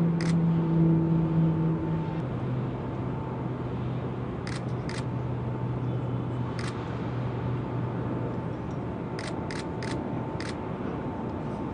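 Steady hum of the dockside crane's machinery holding the X-47B aloft, its low note dropping in pitch about two seconds in. Several short sharp clicks sound over it at irregular moments.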